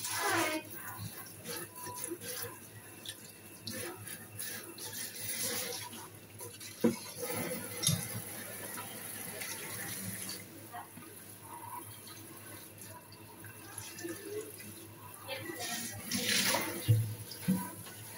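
Water from a pull-down kitchen spray tap splashing onto a plastic container being rinsed in a stainless steel sink, the spray hiss surging a few times as the container is turned under it, with a few sharp knocks.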